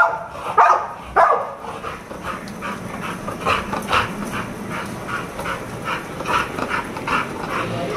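American Bully dog barking: a few loud barks about every half second, then from about two seconds in a fainter, quicker run of barks, around three a second, that goes on until near the end.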